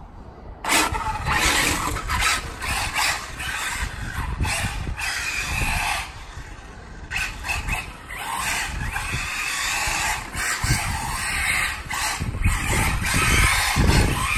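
Arrma Typhon radio-controlled car running on tarmac, its electric motor whining and tyres hissing in uneven surges as it speeds up and slows. A strong, uneven low rumble runs underneath.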